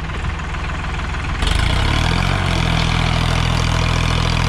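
Sonalika DI-35 tractor's three-cylinder diesel engine working under load, pulling an 8x8 disc harrow in second gear. About a second and a half in it gets louder and the pitch rises briefly as the throttle opens, then holds at a steady working note.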